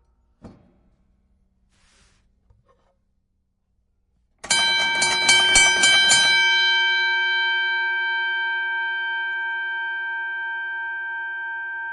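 Boxing ring bell struck rapidly about seven or eight times, then ringing on and slowly dying away. A few faint clicks come before the strikes.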